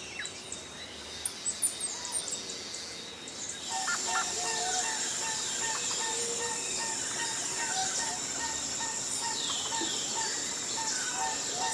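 Jungle bird chorus: sparse, high, short chirps at first, then about four seconds in a dense chorus of many calling birds sets in, over a steady high-pitched hum, with one note repeated about three times a second.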